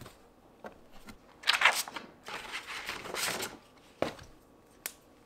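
Paper and cardboard rustling and sliding as a wooden picture frame is taken apart: the backing board lifted out and the paper inserts pulled free, in two rustling sweeps. Two short sharp clicks near the end.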